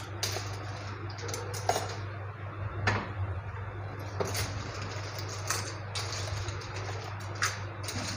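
About half a dozen light clicks and knocks from handling a glass syrup bottle and kitchenware as the bottle is opened and tipped to pour, over a steady low hum.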